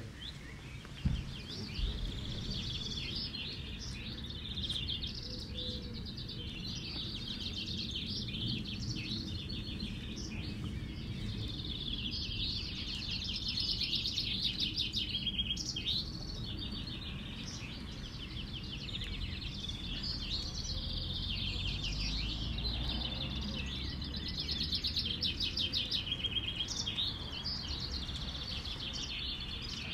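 Many caged male common chaffinches singing in a vinkenzetting song contest: their short, rapid descending trill-songs repeat and overlap throughout, over a low steady rumble. A brief thump about a second in.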